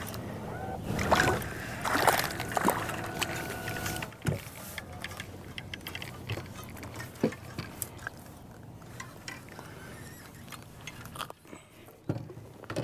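A hooked crappie splashing at the surface beside the boat as it is reeled in, followed by scattered small knocks and handling sounds as it is brought aboard and unhooked.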